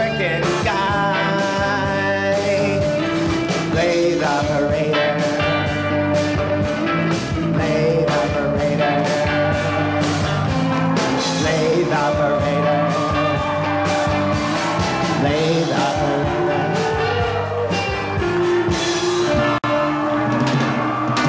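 Live rock band playing a song, with drums and bass under a lead melody line that bends and slides in pitch.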